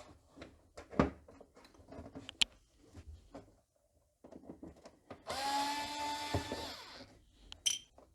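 Scattered clicks and knocks of parts being handled, then a small electric screwdriver runs steadily for about a second and a half, backing out a screw. A short high squeak follows near the end.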